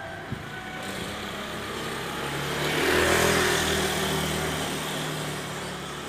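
A motor vehicle going by, its engine hum and road noise swelling to a peak about three seconds in and then fading. A single sharp click comes near the start.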